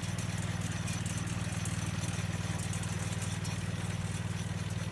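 Small engine driving a mini hay baler, running steadily at a constant speed with a fast, even beat.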